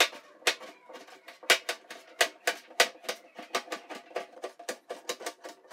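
Kitchen knife chopping onion against a hard countertop: a quick, uneven run of sharp knocks, about five a second, each with a short ring.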